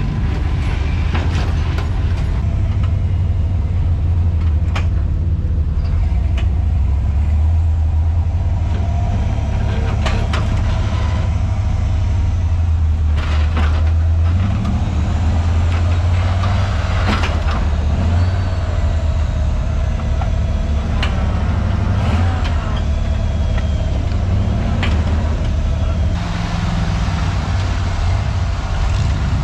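Off-road crawler engines running with a steady low rumble as the rigs creep over a concrete barrier obstacle, with scattered sharp knocks throughout.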